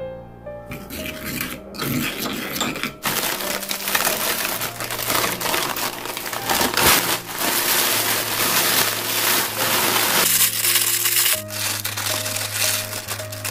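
Toasted sheets of laver (gim) being crushed by hand inside a plastic food bag: dense, loud crackling and bag crinkling, starting about three seconds in and pausing briefly near the end, over background music.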